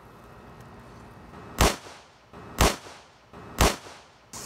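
Three sharp, loud bangs about a second apart from i-8 Le Tigre giant paper firecrackers going off. A steady hiss starts just before the end.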